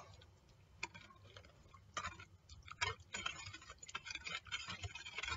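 Wire whisk clicking and tapping against a mixing bowl as it is stirred through a liquid butter mixture: a few separate clicks, then a quick, irregular run of clicking from about halfway through.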